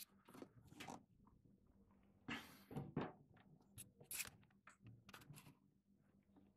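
Faint handling noise as a camera is adjusted by hand: scattered light clicks and taps, with a couple of brief rustles a little over two seconds in and again at about three seconds.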